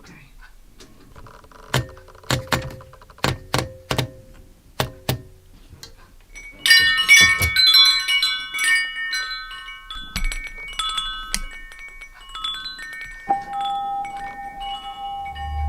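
A run of sharp, separate clacks for the first few seconds, then wind chimes jangling, many ringing tones that gradually fade. A steady high tone comes in near the end.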